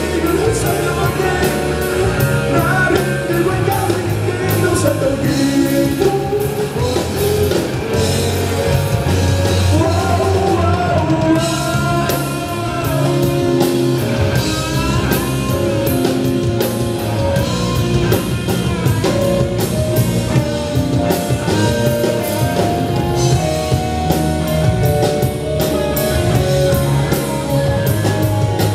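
Live rock band playing a song: a singer over electric guitars, bass guitar and a drum kit, with steady drum hits throughout.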